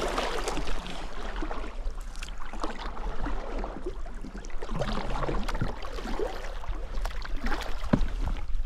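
Kayak being paddled through calm marsh water: the paddle blade dipping and pulling, with irregular splashes, drips and small clicks.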